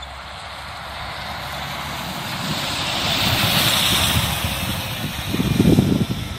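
Intercity coach bus driving past close by, its engine and tyre noise swelling to a peak about three to four seconds in, then easing as it pulls away. Irregular low rumbling near the end is the loudest part.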